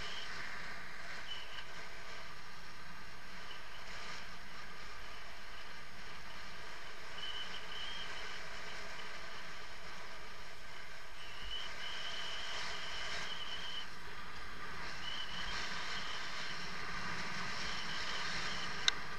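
Mountain bike rolling downhill on asphalt: a steady rush of wind and tyre noise. A thin, high tone comes and goes several times, and there is one sharp click near the end.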